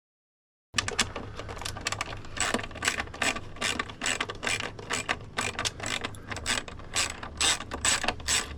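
Ratcheting screwdriver clicking rapidly and irregularly as small machine screws are backed out, several clicks a second, starting after a moment of silence.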